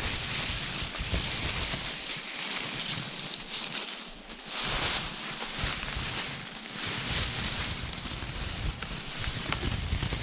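Paper confetti rustling and crackling in a steady, hissy stream of many tiny ticks, swelling and easing a little without any single bang.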